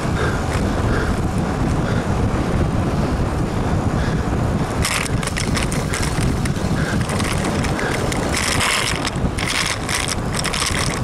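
Wind buffeting the microphone of a camera on a moving road bicycle, a steady low rumble, with bursts of ticking and rattling from the bike starting about five seconds in.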